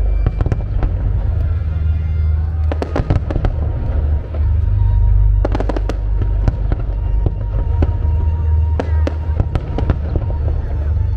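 Fireworks display: a continuous deep rumble of bursting shells with many sharp cracks and crackles, clustering in dense volleys twice, with music playing along.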